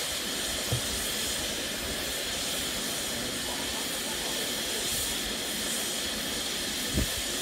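Steady loud hiss of steam venting from the top of the boiler of the Peppercorn A1 Pacific steam locomotive 60163 Tornado. A brief low thump comes about a second in and a louder one near the end.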